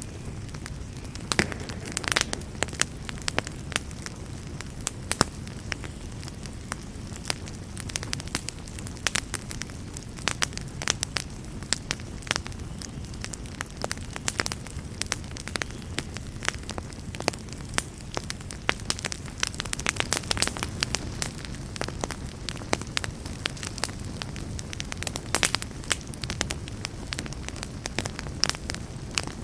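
Wood fire burning in a fireplace, with a steady low rumble and frequent sharp crackles and pops throughout.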